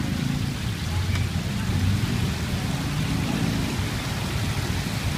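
Chicken pieces sizzling in the hot oil of a stainless-steel electric deep fryer, a steady hiss, with a low rumble underneath.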